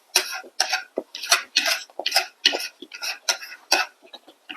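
Close-miked eating: a quick run of short crunching chews, about three a second, growing fainter near the end.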